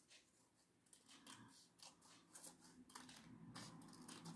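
Small scissors snipping through doubled green paper: a series of faint, short cuts, starting about a second in.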